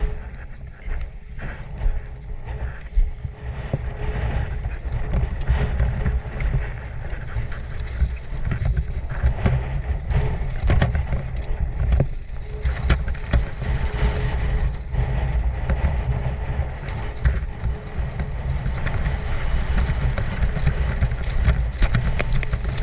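Motorcycle engine running under load on a steep dirt trail climb, a steady low rumble with scattered knocks and clatter, wind rumbling on the microphone.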